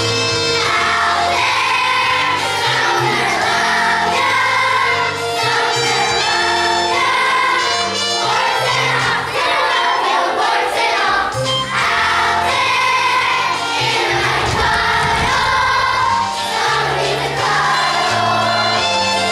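Children's chorus singing a musical number together over instrumental accompaniment.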